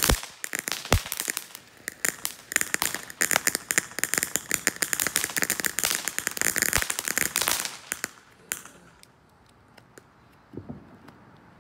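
Ground fountain firework spraying sparks with a dense crackling hiss of rapid pops, dying away about eight seconds in as it burns out. Only a few faint ticks follow.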